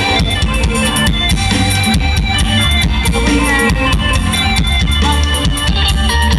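Live luk thung mor lam band music, loud and continuous, with a drum kit keeping a steady beat over a heavy bass line.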